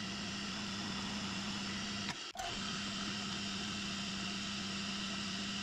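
Milling machine running, its end mill cutting along the edge of a metal frame plate: a steady motor hum with cutting noise, broken by a brief dropout a little over two seconds in.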